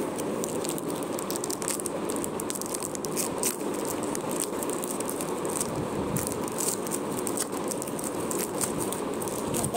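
Foil wrapper of a Pokémon card booster pack crinkling and crackling as it is torn open and the cards inside handled, with many small rapid clicks.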